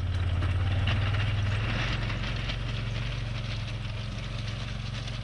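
Side-by-side UTV engine idling steadily, with a hiss over it that is strongest a second or two in.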